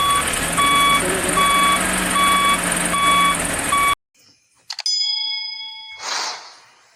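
A wheel loader's diesel engine running with its backup alarm beeping steadily, a little under twice a second. It cuts off abruptly about four seconds in, followed by a short electronic chime and a whoosh.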